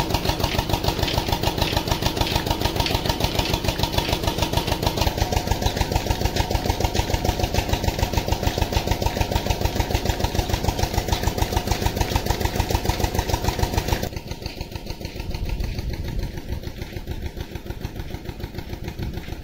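An engine running steadily with a fast, even pulse. About fourteen seconds in its sound changes: the higher part drops away and the low end comes forward.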